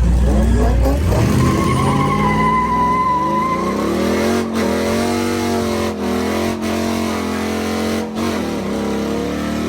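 Car engine revving up over the first few seconds and then held at high revs with a few brief dips, with tires squealing early on as in a burnout.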